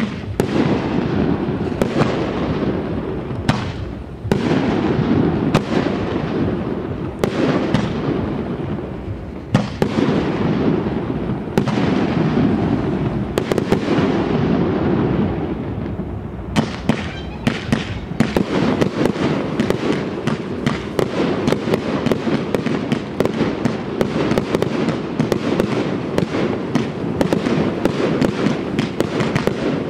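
Aerial fireworks display: shells bursting every second or two with sharp cracks over a continuous low rumble. About halfway through it turns into a dense, rapid crackle of many reports a second.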